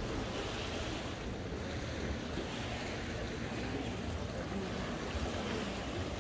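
Steady wash of sea waves on the shore, with wind buffeting the microphone in a low rumble.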